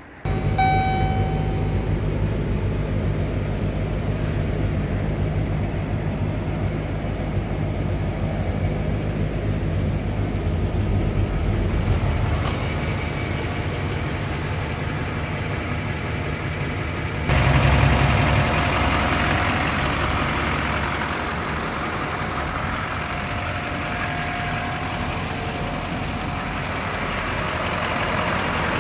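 2009 GMC truck engine idling steadily. A short beep sounds about half a second in, and about 17 seconds in the engine comes through louder and deeper.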